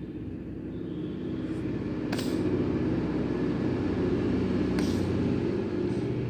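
A low, steady mechanical rumble like a running engine, swelling over the first couple of seconds, with two short clicks.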